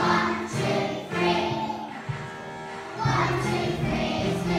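A group of young children singing together over an instrumental accompaniment with a steady bass line. The music drops back about two seconds in and comes back fuller about a second later.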